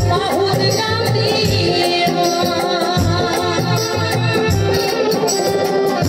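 Live Goalpariya folk song: a woman singing through a microphone and PA over drums and a rattling percussion instrument keeping a steady beat.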